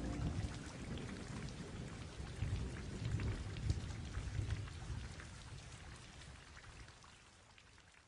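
Faint rain-like sound: a crackly hiss of tiny pattering clicks over a low, uneven rumble, fading away gradually to almost nothing.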